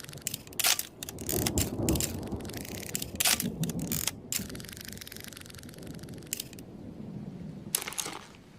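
Camera sound effect: a rapid series of shutter clicks and ratcheting film-advance clatter, then a steady whir for about two and a half seconds, and one more click near the end.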